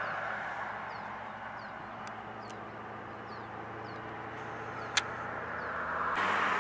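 Outdoor background of passing road traffic, fading over the first second into a steady low hum. Faint short high chirps repeat about twice a second, and a single sharp click comes about five seconds in.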